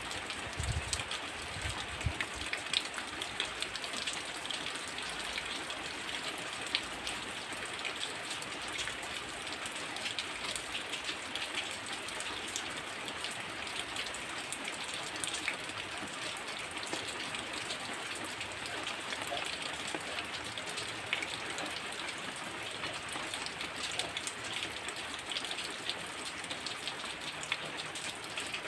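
Heavy rain falling steadily, with a dense patter of individual drops striking hard surfaces. Two brief low thuds come in the first two seconds.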